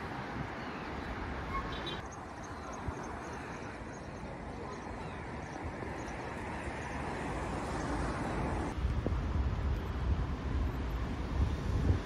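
City road traffic: a steady wash of cars and engines passing on a busy street. The sound changes abruptly about two seconds in and again near nine seconds.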